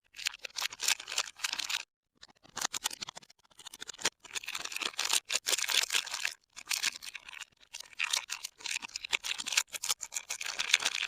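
Soap packaging crinkling, rustling and tearing as bars of soap are unwrapped by hand, in several crackly bursts separated by short dead-silent gaps.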